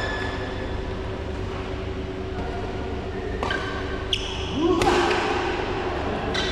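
Badminton racket strikes on a shuttlecock during a fast rally: a few sharp hits in the second half, some with a short high ring after them, over a steady low hum in a large echoing hall.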